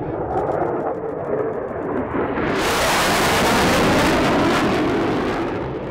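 F-16 fighter jets passing low: a distant jet rumble swells about two and a half seconds in to a loud, rushing jet-engine roar, then begins to fade near the end.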